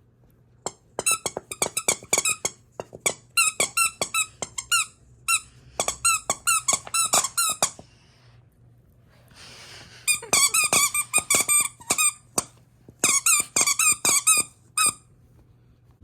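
Squeaky dog toy squeaking over and over as a miniature dachshund bites and chews it. The squeaks come in quick runs with a gap of about two seconds in the middle.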